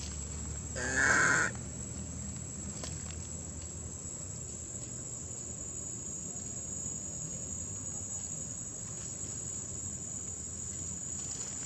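Steady high-pitched insect drone, broken about a second in by one short, loud animal call that bends in pitch.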